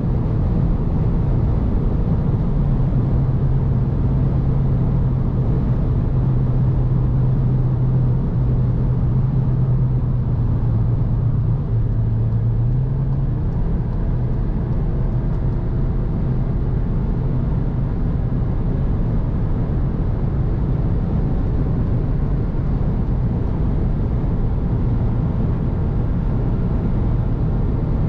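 Cupra Ateca 2.0 TSI (turbocharged four-cylinder) at high autobahn speed, heard inside the cabin: a steady roar of wind and tyres under the engine's drone. A low engine hum stands out through the first half and then sinks back into the road noise.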